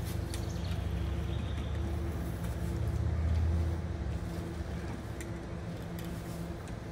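A steady low rumble that swells around the middle and eases off, with a few light clicks and knocks from a metal RV rear ladder as someone climbs it onto the roof.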